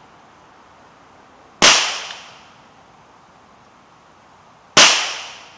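Two shots from an unsuppressed Ruger Mark II .22 LR pistol firing CCI Black Box subsonic ammunition, about three seconds apart, each a sharp report with a short echo fading over about a second. The rounds chronograph at about 947 feet per second, below the speed of sound, so there is no supersonic crack. The short barrel makes them a little louder than the same rounds from a rifle.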